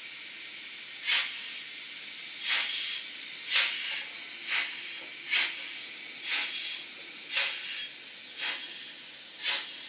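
N-scale model steam locomotive's simulated exhaust sound: nine slow steam chuffs, about one a second, over a steady hiss of steam as it creeps onto the turntable bridge.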